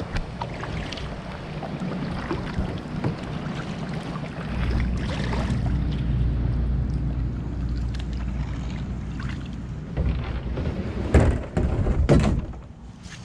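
Double-bladed kayak paddle dipping and splashing through floodwater, stroke after stroke. Near the end come a few loud, sharp knocks.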